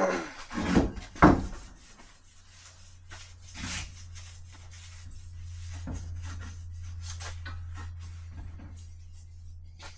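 A few sharp knocks as aluminium tubing pieces are handled and set down, then soft rubbing and handling noises over a low steady hum.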